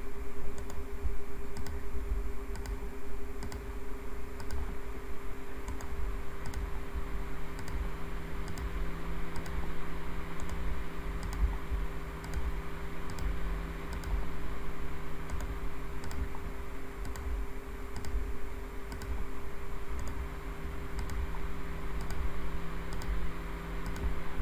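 Computer mouse and keyboard clicks, about one a second, as checkbox cell links are set one after another. Underneath is a steady electrical hum, with a second, lower hum joining about six seconds in.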